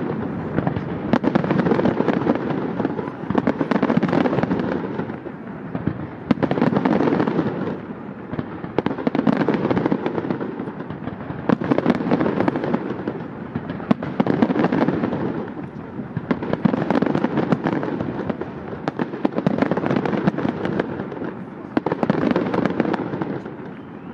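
Aerial fireworks display: a dense, continuous barrage of bursts and crackle that swells and eases in waves about every two and a half seconds.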